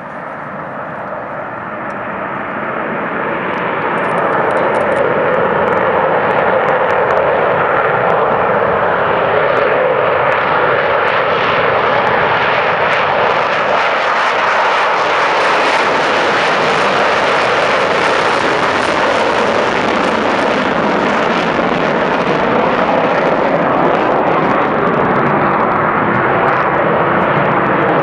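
McDonnell Douglas F-15E Strike Eagle twin jet engines at full afterburner during takeoff: a loud, steady jet roar that builds over the first few seconds.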